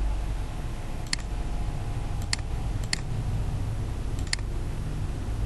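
Computer mouse clicking: four sharp single clicks a second or so apart, over a low steady hum.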